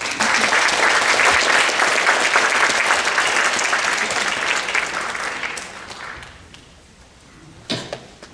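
Audience applauding after a talk, dense clapping that dies away about six seconds in. A single sharp knock follows near the end.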